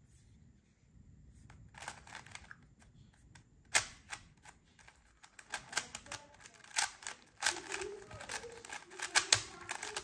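GAN 356 RS stickerless 3x3 speed cube being turned by hand: quick plastic clicks and clacks as its layers are spun and snap into line. The clicks come in irregular flurries starting about two seconds in and grow denser in the second half.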